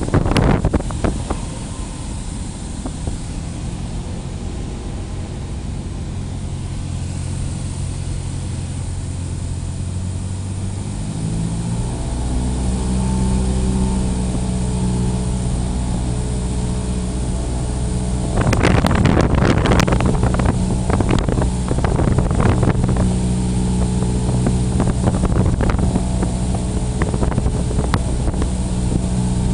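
Cessna 172's piston engine and propeller running steadily. About ten to twelve seconds in, the pitch rises and the sound grows louder as power is added, then it holds. From about two-thirds of the way in, irregular gusts of wind rush and crackle on the microphone over the engine.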